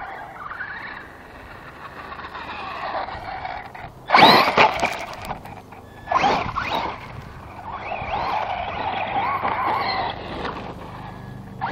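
Electric RC truggy's brushless motor (Castle 3800 on a 2S LiPo) whining, rising and falling in pitch as the throttle comes on and off. Two loud bursts of noise break in, about four and six seconds in.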